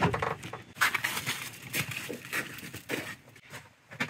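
Rustling and irregular knocks of a UTV's bench seat being handled and set back onto its hooks and spikes in the cab.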